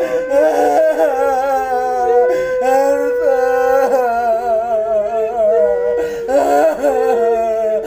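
Slow background music with a wavering melody over long held notes.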